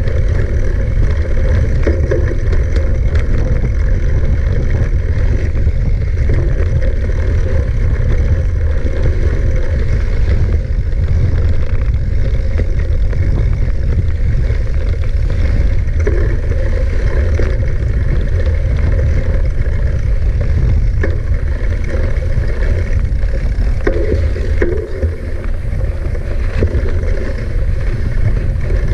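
Steady rumble of wind buffeting the camera microphone and tyres running over ground on a mountain bike ride, with a few light rattles now and then.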